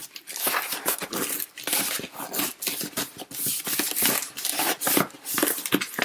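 Corrugated cardboard shipping box being torn open along its tear strip: a continuous run of irregular ripping and crackling.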